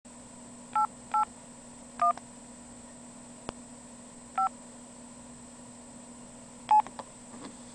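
Touch-tone phone keypad dialing: five short two-tone beeps at uneven intervals, over a steady low hum on the line.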